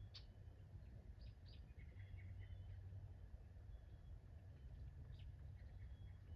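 Faint songbird chirps and short whistled calls, scattered and irregular, over a low steady rumble.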